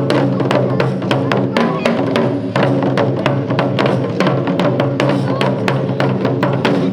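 Ensemble of Japanese taiko drums playing a fast, driving rhythm of sharp strikes over low sustained tones, stopping right at the end.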